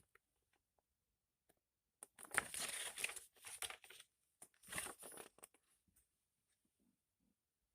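Packaging handled close by, crinkling and rustling in two bursts: a longer one about two seconds in and a shorter one near the five-second mark.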